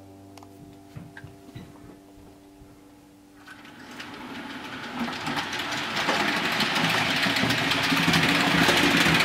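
OO-gauge model train, a Bachmann Class 42 Warship diesel with coaches, running along the track: a rushing rumble of wheels full of fast little clicks over rail joints. It builds from about three seconds in and grows steadily louder as the train passes close.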